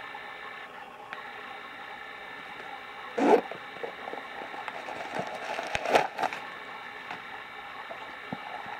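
Gloved hands handling a small Louis Vuitton monogram canvas pouch with its leather strap: a loud rustle-knock about three seconds in, then a cluster of brushes and small clicks around six seconds, over a steady background hum.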